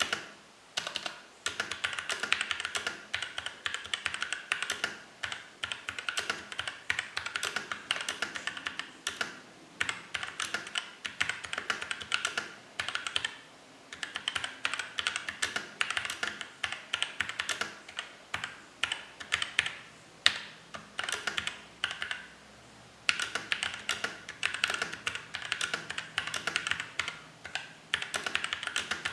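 Fast typing on a mechanical keyboard with tactile Outemu Sky switches, lubed with Krytox 104 but with the springs left unlubed. Dense runs of keystroke clacks, broken by a few short pauses.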